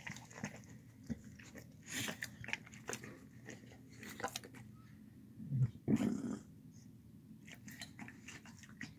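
A shar-pei and pit bull mix dog eating soft food from a bowl, chewing and smacking in irregular bursts, with a louder burst about six seconds in.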